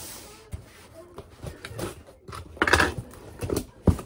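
Scissors cutting the packing tape on a cardboard box, with scattered crackles and scrapes of cardboard. A louder scraping rasp comes about two-thirds of the way in, and a sharp knock near the end as the box is handled.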